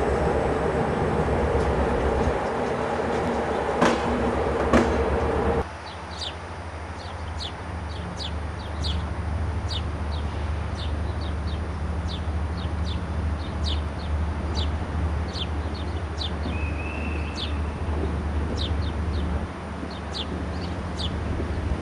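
For the first six seconds, railway passenger coaches roll past with knocks from the wheels over rail joints. Then the sound cuts to a CFR locomotive pulling double-deck coaches slowly into the platform, with a steady low drone.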